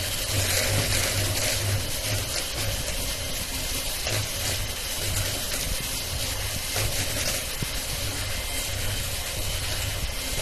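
Electric hand mixer running steadily, its beaters whipping butter and powdered sugar in a stainless steel bowl to a creamy, fluffy texture.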